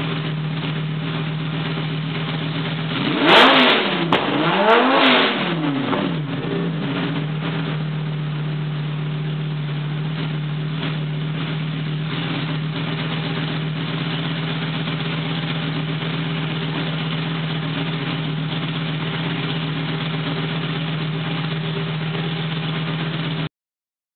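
Lamborghini Gallardo V10 running through an aftermarket Meisterschaft exhaust with test pipes, idling steadily. About three to five seconds in it is revved twice, each rev rising and falling, with a few sharp cracks, then it settles back to a steady idle.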